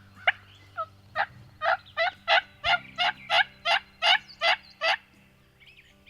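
A series of about a dozen turkey yelps, evenly paced at roughly two and a half a second, loudest through the middle of the run.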